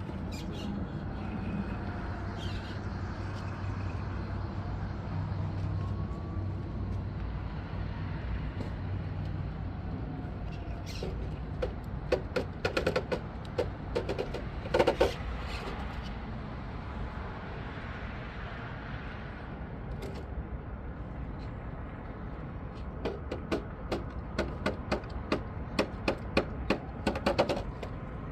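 Redcat Ascent RC crawler's electric drivetrain running, with a faint whine that rises and falls with the throttle. Bursts of rapid clicks and knocks come about halfway through and again over the last five seconds.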